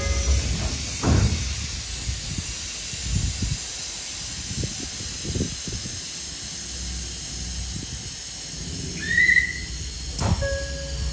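Shin-Keisei Line electric train standing at a station platform: a steady low rumble with a faint hiss, a few soft knocks, and a short rising whistle near the end.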